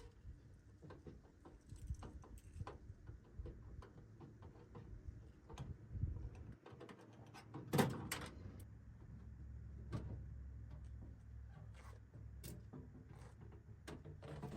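Scattered clicks, taps and knocks of hands and tools working on a car door panel and its handle hardware, the loudest knock about eight seconds in.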